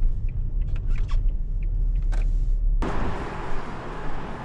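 Low rumble inside a car cabin, with a few light clicks. About three seconds in it cuts suddenly to a steady broad hiss.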